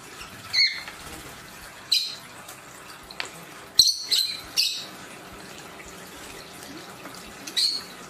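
Lovebirds giving short, sharp chirps, about six in all, over the steady trickle and splashing of a small bird-bath fountain in which birds are bathing.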